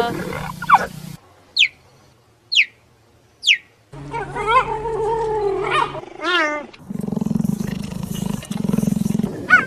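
Cheetah calling: three short, high chirps, each falling in pitch, then a longer wavering call, then a low purring stretch near the end.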